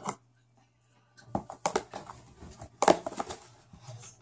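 Homemade glue-and-borax slime being squished and stretched by hand: a run of irregular sticky clicks and crackles starting about a second in, after a single sharp click at the start.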